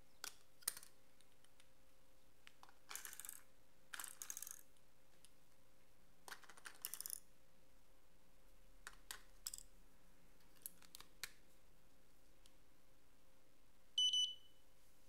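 Clicks and plastic rattles of a Yongnuo YN-565EX flash being handled, its battery door opened and AA batteries clicked into place. Near the end the flash gives two short high beeps at switch-on, the power-up beep after which this faulty unit hangs.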